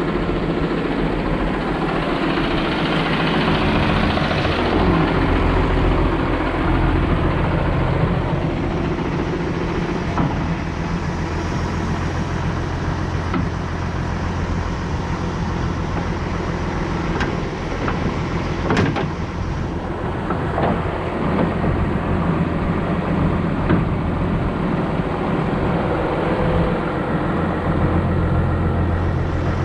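John Deere 710D backhoe's diesel engine running steadily while the boom is worked on the hydraulics, with a few brief shifts in pitch.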